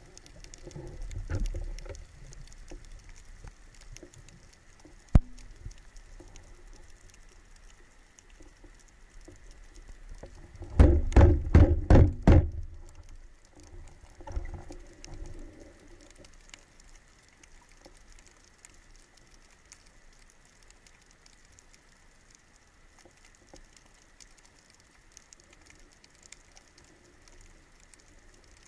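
Underwater sound picked up by a camera on a speargun: a fine, steady crackling and ticking. A sharp click comes about five seconds in, and a loud run of about seven low thumps comes just before the middle, lasting about a second and a half.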